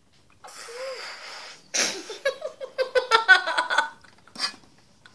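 Air blown through a drinking straw into a lump of slime, a breathy hiss lasting about a second, followed by a boy laughing in quick repeated bursts.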